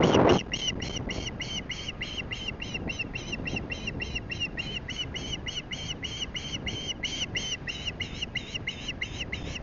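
Osprey calling a steady run of sharp, high chirps, about four a second, unbroken throughout. A gust of wind hits the microphone right at the start.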